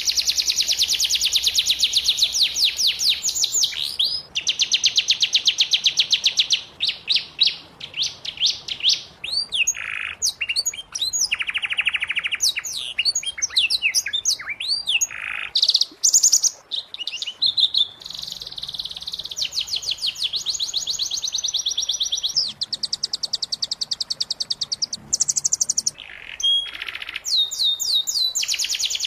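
Domestic canary singing a long, continuous song of fast rolling trills and chattering phrases. The trill changes every second or two, with a few brief pauses between runs.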